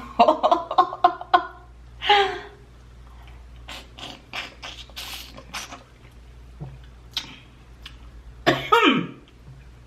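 Wet slurping and sucking as a woman sucks the spicy sauce and juice out of a large prawn, broken up by short voiced sounds: a quick run of them at the start and a falling one near the end.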